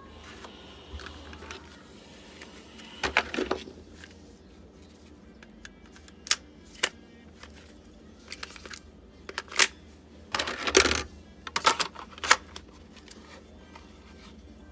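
Sharp plastic clicks and clacks of an airsoft pistol being handled and pushed into a Kydex holster. They come singly and in short clusters, busiest a little after 3 seconds and again around 10 to 12 seconds.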